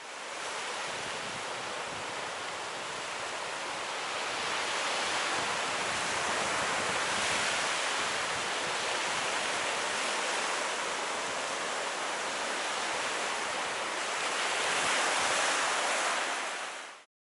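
Ocean surf washing onto a beach, a steady rushing noise that swells slightly near the end and then cuts off abruptly.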